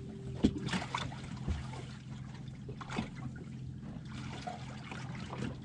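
Water splashing and trickling against a boat hull, with a few scattered knocks over a steady low hum.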